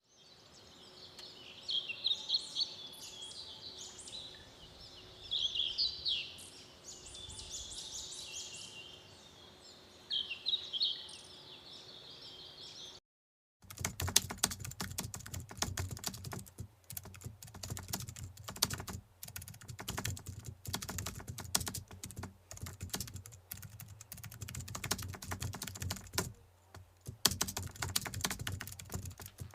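Cartoon sound effects: high-pitched chirping and squeaking for about thirteen seconds, then, after a short break, a long run of rapid, irregular clicks over a low hum.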